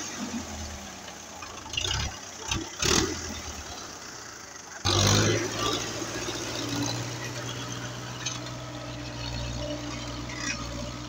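Belarus 510 tractor's diesel engine running steadily under load while pulling a spring-tine cultivator through the soil. Several loud knocks and thumps come in the first five seconds, and from about five seconds in the engine drone is steady and even.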